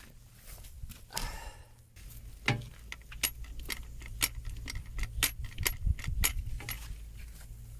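Mini excavator's diesel engine idling low and steady, with a run of sharp metallic clicks and rattles about twice a second from about two seconds in.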